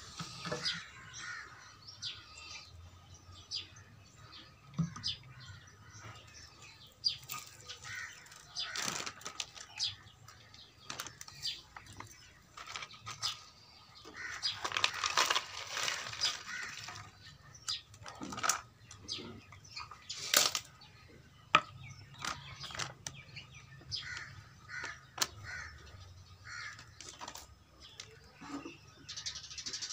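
Outdoor bird sounds, chirping with some crow calls, over scattered sharp clicks and rustles of a small tree and plastic tray being handled, with a denser burst of rustling about halfway through.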